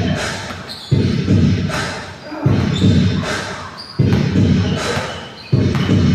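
Music with a heavy, steady bass beat, a deep pulse about every one and a half seconds, with lighter ticks between, echoing in a large hall.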